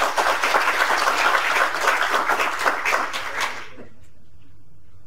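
Audience applauding, dense clapping that dies away about four seconds in.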